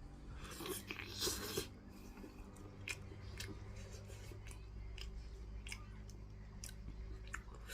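Faint crackles and small clicks of roast chicken being handled, with a denser crunchy stretch about a second in, over a steady low hum.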